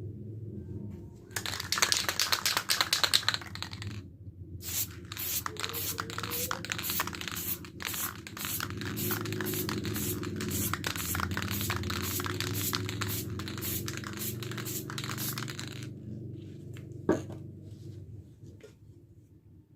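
Aerosol can of clear lacquer spraying. One continuous hiss lasts about two seconds, then after a pause comes a long run of short hissing bursts, about three a second, which stop near the end. A single sharp tap follows.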